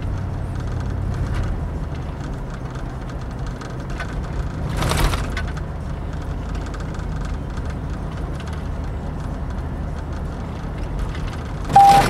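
Steady engine and road noise heard from inside the cab of a 2003 Chevy Tahoe at about 30 mph, with a short louder noise about five seconds in. Near the end comes a sudden clunk, then a steady warning chime starts: the door locks and warning systems have been set off by a loose, corroded engine ground wire.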